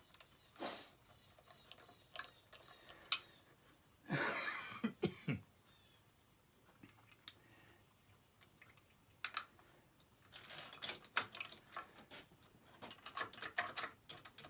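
Hand tools and small metal engine parts clicking, tapping and clattering on a workbench during assembly of a small engine, with a short rustling scrape about four seconds in and a quick run of clicks near the end.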